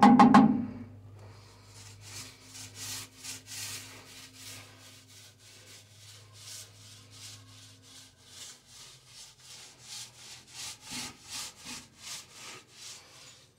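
Small foam paint roller rolling resin onto a rough painted wall, a soft rubbing swish with each stroke, about two strokes a second. A loud bump at the very start.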